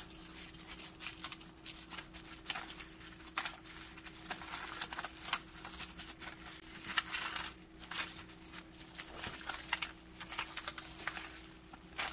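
Gloved hand rubbing and turning wet pieces of Spanish mackerel fillet on baking paper: irregular crinkling and rustling of the plastic glove and paper, with soft wet handling sounds of the fish.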